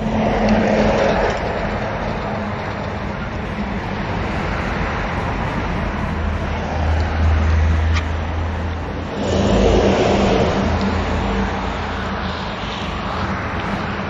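Engine and road noise from passing motor traffic. It swells near the start and again about two-thirds in, with a low steady hum in between.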